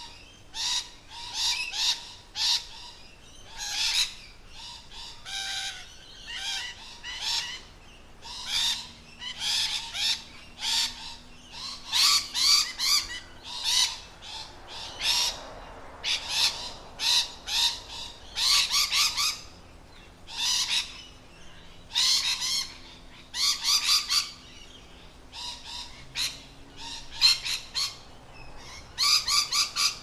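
Rainbow lorikeets screeching: short, harsh, high calls repeated in quick clusters, with brief pauses between them.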